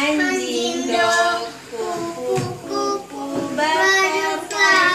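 Children singing a song, in phrases of held notes with short breaks between lines.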